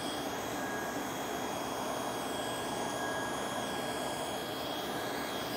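Table saw running at full speed, a steady whine with its blade cutting a stopped dado in a wooden workpiece on a crosscut sled.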